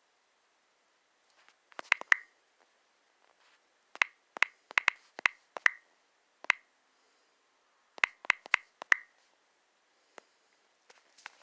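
Cold Steel Mini Recon 1 Tanto folding knife being worked open and shut by hand: sharp clicks of the blade and its Tri-Ad lock, in quick clusters of several at a time with short pauses between.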